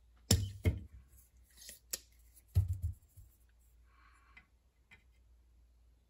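Spring-loaded solder sucker (desoldering pump) fired twice, each a sharp snap of the released plunger, about two seconds apart, with lighter clicks in between and after. It is pulling molten solder out of circuit-board through-holes.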